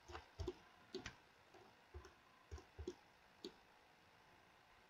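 Faint, scattered clicks of a computer mouse and keyboard, some in quick pairs, stopping about three and a half seconds in.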